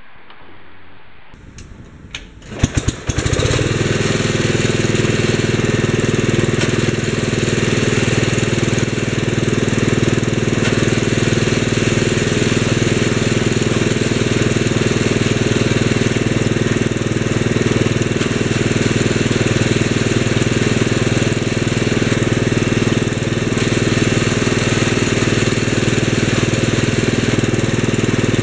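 1965 Wheel Horse 875's 8-horsepower engine turning over and catching about three seconds in, then running steadily.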